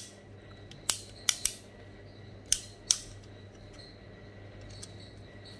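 Sharp plastic clicks of the rocker switches on an MK four-gang wall switch plate being flicked, about six clicks, several in close pairs, in the first three seconds.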